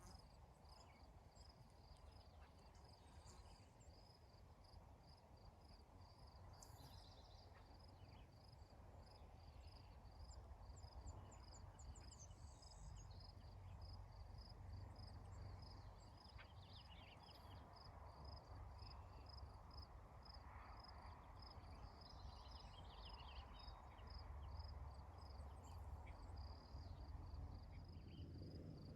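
Faint, steady chirping of a cricket, about three even chirps a second, with a few brief higher calls and a low rumble of wind behind it.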